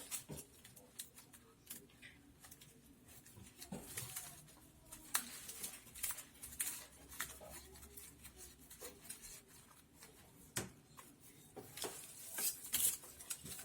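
Palm-leaf strips rustling and crackling as they are handled, folded and pushed through a palm weave, in irregular small clicks and crinkles.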